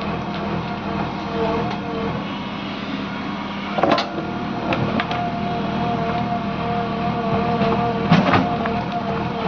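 JCB backhoe loader's diesel engine running steadily under load while it digs. Two loud knocks sound, about four seconds in and again near the end.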